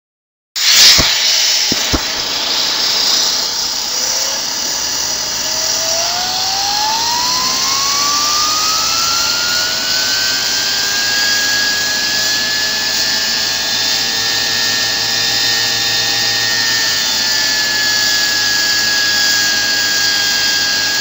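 Homemade tin-can jet turbine running on compressed air: a steady rush of air with two sharp knocks near the start, then a whine that rises over several seconds as the rotor spins up and holds at a high pitch.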